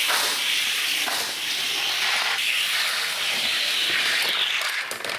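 Toy car's wheels rolling fast along a toy race track: a steady rolling noise with a couple of brief dips, dying away near the end as the car stops.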